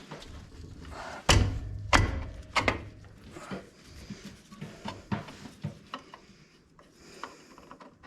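Metal drum-brake parts knocking and scraping as a rear brake shoe is worked into place on the backing plate. Two louder knocks come between one and two seconds in, followed by scattered lighter clicks.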